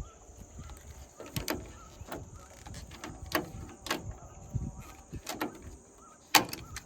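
Rivet gun setting blind rivets through washers into a polycarbonate sheet on an excavator's metal frame: a series of sharp clicks and snaps, the loudest snap about six seconds in.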